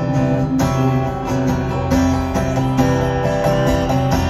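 Live band music heard from the audience: an instrumental stretch between sung lines, with strummed guitar over a steady beat.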